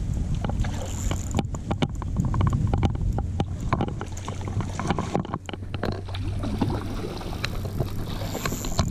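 A hooked rainbow trout splashing at the surface while a spinning reel is worked and a landing net goes into the water, with many irregular short clicks and splashes. A steady low hum runs underneath.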